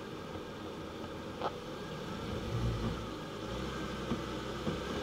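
Jeep Cherokee Trailhawk's 3.2-litre Pentastar V6 running at low revs as the SUV crawls over rutted dirt, with a low rumble swelling about halfway through and a few light clicks and knocks.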